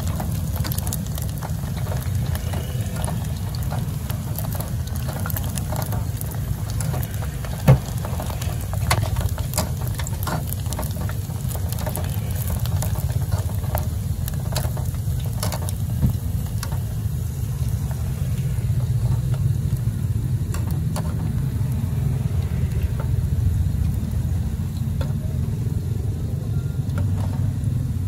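Meatballs deep-frying in a pot of oil, crackling, while metal tongs stir and turn them and click against the pot, with one sharp clank about eight seconds in. A steady low rumble runs underneath.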